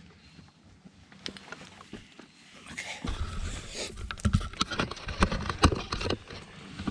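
Footsteps on a rocky path strewn with dry leaves and stones, with knocks and rubbing from a body-worn camera moving against clothing and gear. The steps and knocks get louder and come thick and fast from about three seconds in.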